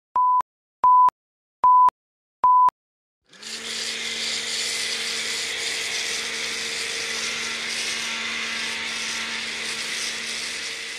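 Four short, evenly spaced beeps of a film countdown leader, then a pressure washer starting up and running steadily: a hissing water jet sprayed onto a motorcycle over a constant motor hum.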